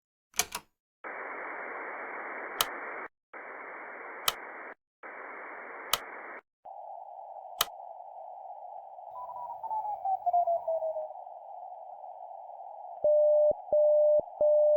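Radio receiver static: three blocks of hiss separated by clicks, then a narrower band of hiss with a whistle sliding down in pitch. Near the end a steady Morse code tone starts keying long dashes at slow 7 wpm speed, the opening of the digit zero.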